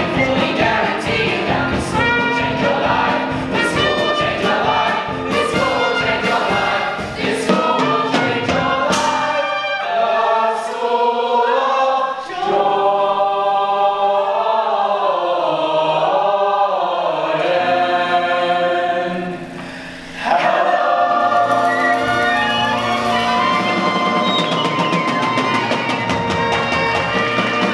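A large mixed chorus of stage performers singing together in harmony. For the first several seconds a rhythmic accompaniment with a steady beat drives the song; about ten seconds in the beat drops away and the voices carry on alone in slow, gliding chords, then after a short dip near twenty seconds they come back in full on long held notes for the closing chord.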